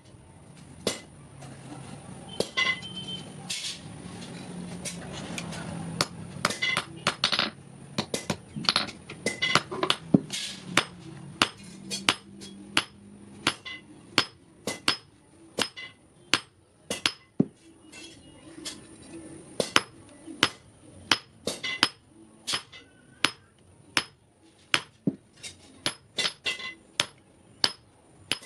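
Blacksmith's hammer striking steel on an anvil while forging an S hook: a long run of sharp metallic blows, about one to two a second, some with a brief ring. A low steady hum runs under the first half.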